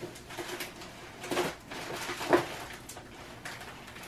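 Plastic packaging being handled: light rustling with a few soft knocks as a plastic accessory tray and a bag of parts are moved about.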